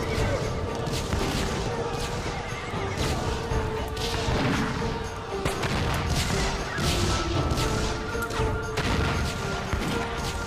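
Horses neighing over background music with long held notes, with repeated knocks throughout.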